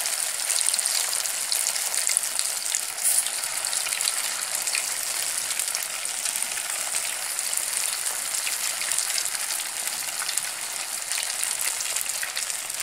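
Rice and cheese fritters deep-frying in hot oil in an aluminium pan: a steady sizzle with many small crackles.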